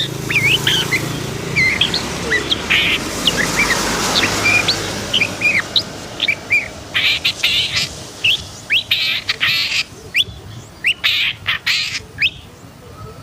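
Long-tailed shrike (pentet) singing in a fired-up state: a rapid run of varied chirps and short sweeping whistles, broken by several harsh rasping notes, mostly in the second half.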